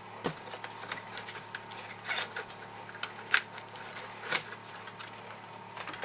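Scattered light clicks and taps of plastic and metal laptop parts as a Toshiba Satellite L505D's LCD panel is handled and set back into its screen lid, the sharpest two about three and four seconds in.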